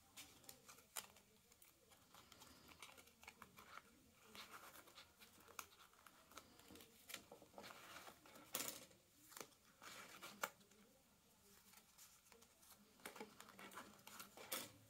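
Faint, scattered clicks and scrapes of plastic cards being handled and slid into the card slots of a sewn wallet, with a couple of sharper taps about eight and a half and ten and a half seconds in.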